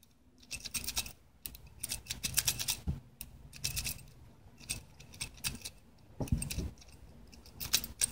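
A key being jiggled and turned in a cheap brass euro profile lock cylinder: clusters of small metallic clicks and rattles, with the other keys on the ring jangling. A key not cut for this cylinder is being worked until it turns, which shows how loose the lock's tolerances are.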